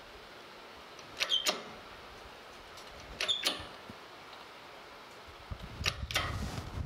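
Hydraulic press working against a cast iron valve sleeve in a steam stoker engine's cylinder head: short paired metallic clicks with a brief ring come about every two seconds, three times. Near the end a louder rough noise builds as the press pushes on the sleeve.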